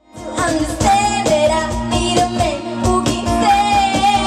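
Soundtrack music with singing over a held low drone and a steady beat, starting abruptly at the outset.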